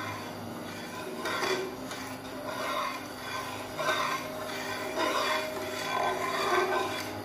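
A slotted metal spatula stirring milk in a metal kadai, scraping across the pan's bottom about once a second, as the milk is boiled down to thicken it.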